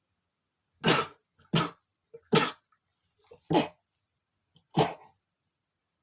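A man sneezing in a fit: five short, sharp sneezes in quick succession, about one a second, with a faint catch of breath before several of them.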